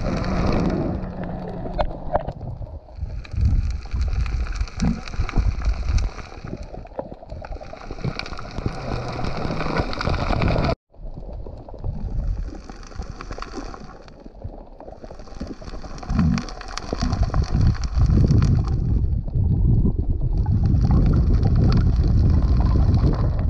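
Underwater water noise: uneven low rumble and sloshing with repeated stretches of hiss lasting a few seconds each, as a free diver swims with the camera. It cuts out for a moment about eleven seconds in.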